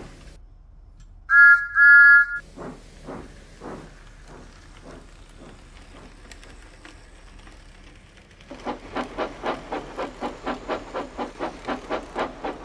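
Steam locomotive whistle giving two short toots, followed by steam-engine chuffing, slow at first, then fading, then a louder, quicker chuff of about five a second from around two-thirds of the way in.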